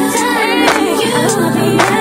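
Background R&B music with a singing voice over a steady beat.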